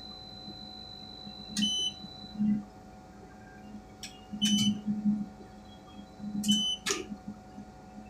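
Tower crane cab electronics: a steady high tone that stops about two seconds in, then several sharp clicks, some with a short high beep, over a low steady electrical hum.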